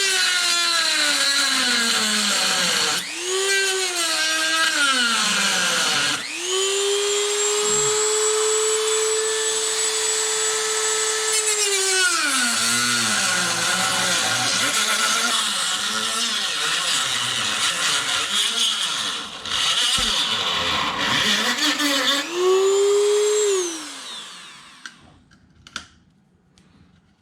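Small high-speed power tool, likely a rotary cutting tool, trimming a part to make room for the new battery cable. Its motor whine holds steady, then drops in pitch each time it bites into the material and climbs back, and it stops about 24 seconds in.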